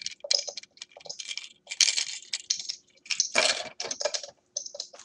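Plastic packaging crinkling and rustling in short, irregular bursts as a boxed doll is handled and unwrapped, loudest about three and a half seconds in.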